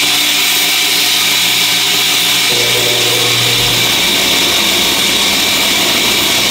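Ribbon sander (a narrow belt sander) running steadily, its belt sanding the tail of a white myrtlewood carving. It makes a loud, even hiss over a motor hum, and the hum shifts about two and a half seconds in.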